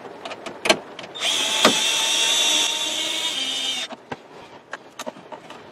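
Small cordless drill/driver running steadily for about two and a half seconds, driving a screw into the dash trim, with light plastic clicks and knocks before and after.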